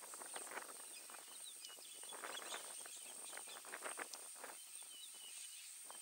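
Faint scattered cracks and rustles of African elephants moving and feeding in dry bush, with a few short bird chirps and a steady high-pitched whine.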